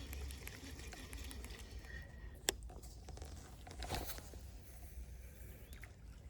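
Faint ticking and rustle of a baitcasting reel being wound during a lure retrieve, with one sharp click about two and a half seconds in.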